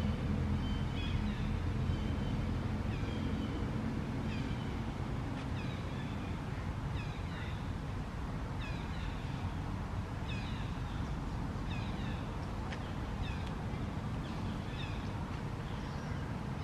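Outdoor ambience: a steady low rumble with a run of short, high, falling chirps repeating about once a second.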